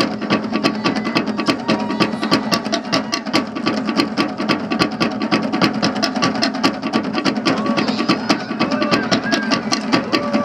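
Fast, steady drumming on wooden log drums, about four strikes a second, with a few short vocal calls near the end.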